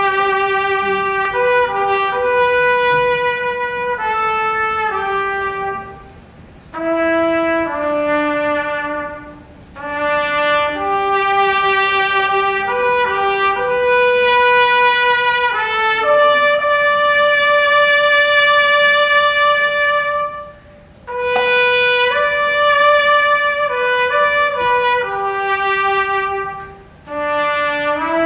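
Trumpet playing a slow, held-note melody in long phrases with brief breaks between them, carrying the tune over a live band.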